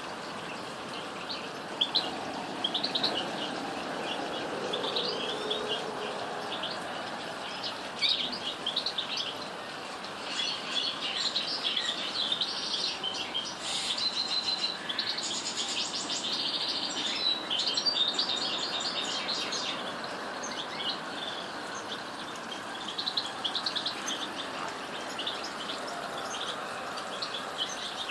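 Birds chirping: a steady run of short, high chirps that grows busier and denser for several seconds in the middle.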